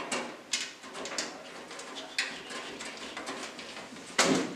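Metal side panel of a desktop PC case being slid and pressed into place by hand: a series of short metallic clicks and scrapes, the loudest just after four seconds in.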